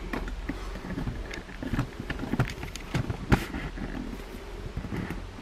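Handling noise: scattered clicks and knocks of a plastic transforming-robot figure being handled and set in place, with one sharper knock a little past the middle.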